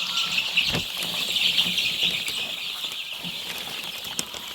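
A large flock of chicks, about two weeks old, in a brooding house, all peeping at once in a dense, continuous high-pitched chatter, with a few light knocks.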